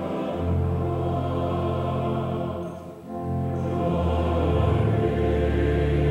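A congregation singing a sung prayer together in long, held notes over a deep bass, with a short breath-like pause about three seconds in before the singing swells again.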